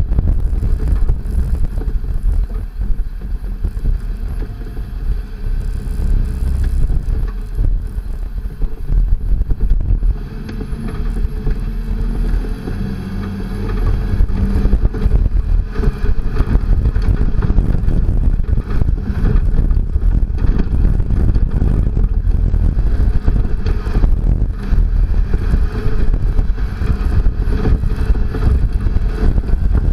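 Second-generation Toyota Tacoma prerunner driving fast over a rough dirt trail: a steady, loud rumble of tyres, engine and suspension, broken by many short knocks and rattles as the truck runs over bumps. It eases off for a few seconds around the middle.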